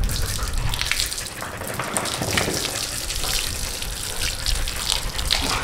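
Water from a garden hose spraying onto a dog's wet coat and splashing on a tiled floor, a steady rushing spray.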